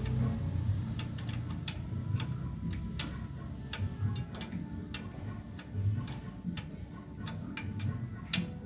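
Irregular light metallic clicks and taps of hand tools and parts being worked on a concrete mixer's small engine, over a steady low rumble.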